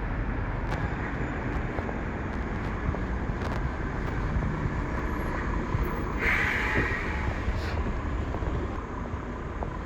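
A coach's engine rumbling steadily as it arrives at the stop, with a short burst of air hiss about six seconds in.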